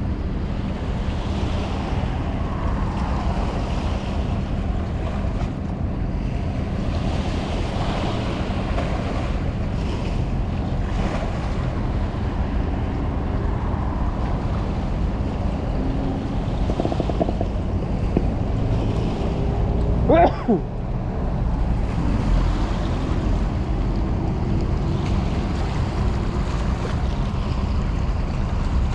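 Wind buffeting the microphone over the wash of water, a steady rushing noise. About two-thirds of the way through, a brief pitched cry that rises and falls cuts through.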